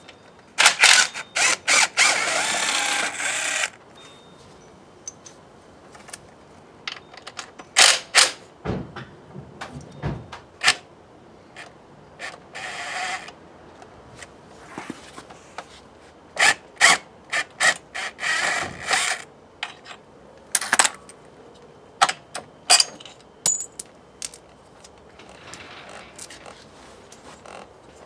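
Cordless drill-driver running in short spurts at bolts on a motorcycle engine, with one longer run of about three seconds near the start. Clicks and clatter of tools and parts come between the spurts.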